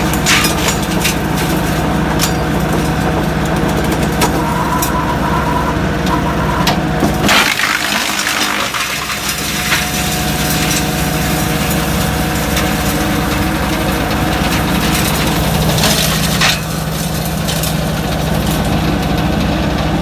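Engine-driven wood chipper running steadily, with repeated cracking and crunching as wood is fed in and chipped.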